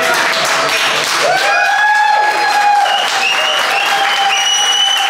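Crowd clapping and cheering. About a second in, a long pitched call rises and then holds steady for several seconds over the applause.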